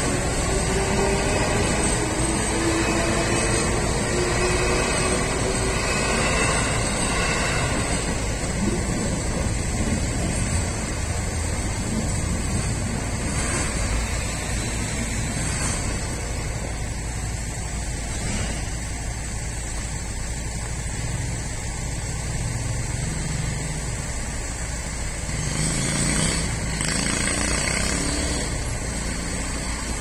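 Trains passing over a Japanese level crossing. An electric commuter train runs through with a falling motor whine in the first few seconds, then a JR Freight container train rolls through. Near the end, road traffic starts across the reopened crossing.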